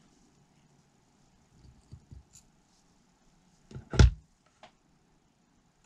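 Light knocks and clicks from handling things on a workbench during soldering, with one sharp knock about four seconds in.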